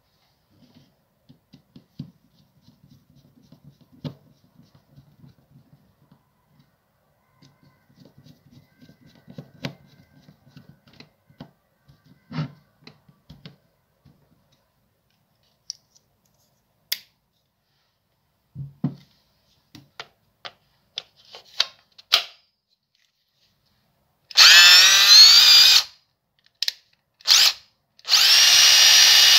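Makita cordless impact driver, fitted with new brushes and a new trigger switch, test-run with no load. Its brushed motor spins up with a rising whine and runs for about two seconds. Two short trigger blips follow, then it runs steadily again near the end. Before that come quiet screwdriver rattles and a few clicks as the back cover screws are driven home.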